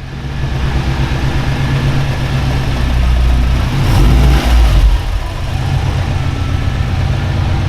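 Car engine running, fading in at the start, with a brief louder rev about four to five seconds in.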